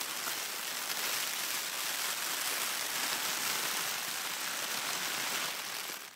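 Plastic trash bag rustling and crackling continuously as it is handled, dropping off sharply about six seconds in.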